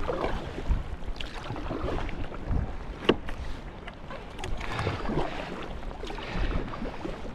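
Sea kayak paddle strokes: the blades dipping and pulling through the water on alternate sides, with water splashing along the hull in irregular surges. A single sharp click about three seconds in.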